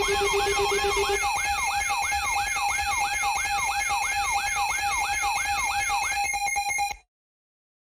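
Electronic siren-type alarm sound: a rapid repeating pitch sweep, about three a second, over steady held tones. A lower pulsing tone drops out about a second in, and the whole sound cuts off suddenly about seven seconds in.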